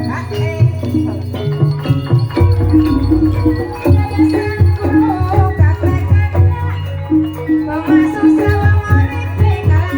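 Traditional Banyumas ebeg accompaniment music. Repeated pitched percussion notes form the melody over a steady drum beat, with a rattling percussion layer.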